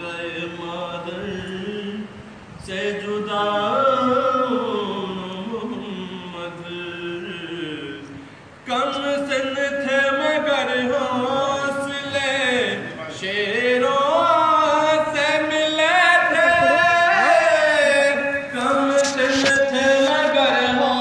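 A male voice chanting a nauha, the Shia mourning elegy, unaccompanied into a microphone in a slow, gliding melody. About nine seconds in the chanting grows suddenly louder and stays strong.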